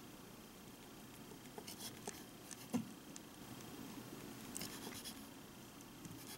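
Small knife slicing a tiny octopus tentacle on a miniature wooden cutting board: faint scratches and clicks as the blade cuts through and touches the wood, with one sharper tap about three seconds in.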